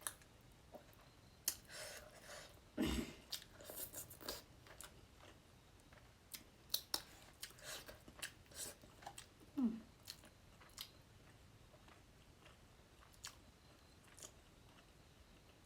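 A person eating close to the microphone: chewing with irregular mouth clicks and smacks, busiest in the first ten seconds and sparse after that.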